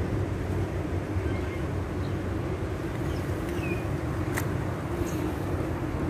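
Steady outdoor background noise, a low rumble with hiss, with one faint short chirp a little past halfway and a sharp click soon after.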